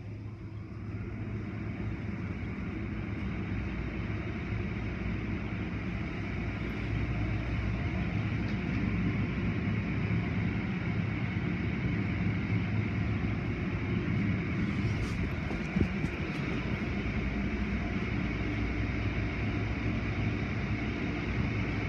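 Automatic tunnel car wash running: spinning cloth brushes and water spray working over foam-covered cars, over a steady low machinery hum. It grows louder over the first couple of seconds, and a few light knocks come about two-thirds of the way through.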